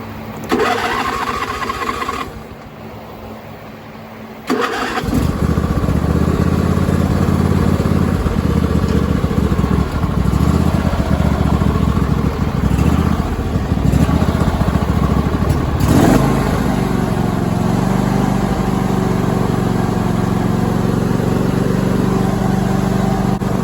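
26 hp Briggs & Stratton engine in a Cub Cadet lawn tractor. After a short noisy burst and a quieter pause, it comes up suddenly about four and a half seconds in and runs loud and steady, settling into an even note around sixteen seconds.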